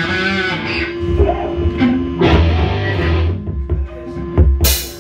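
Electric guitar playing through an amplifier, with a held note and bass guitar underneath. The drum kit comes in with cymbal crashes near the end.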